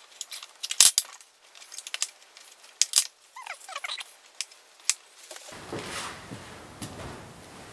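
Metal hand tools and small steel parts clinking and knocking on a workbench while rubber mounts are fitted to a steel bracket: a handful of sharp clinks, with a short squeak about three and a half seconds in.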